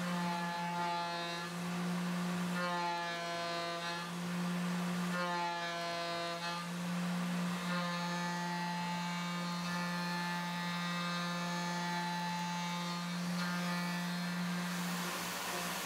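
Tormach PCNC 770 spindle running with a steady whine while an end mill cuts an aluminium part. Ringing overtones come and go several times as the cutter moves in and out of the cut.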